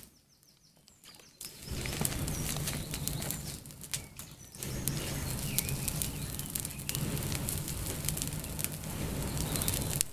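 A brush pile of wet branches burning, flaring into a tall flame after being doused with alcohol: a fluttering rumble of flame with sharp crackles of burning twigs. It starts about a second and a half in and dips briefly at about four and a half seconds.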